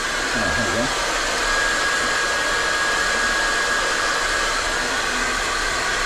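Valera Swiss Light 3200 hair dryer running steadily, a rush of blown air with a constant high whine from its motor.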